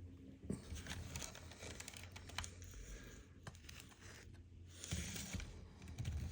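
Irregular light clicks, taps and crinkly rustles from small metal parts being handled at a soldering bench, with a denser run of them about five seconds in.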